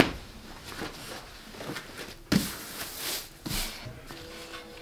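A few knocks and rustles as a wooden cutting board is handled over a cloth, the sharpest knock about two seconds in. Faint music comes in near the end.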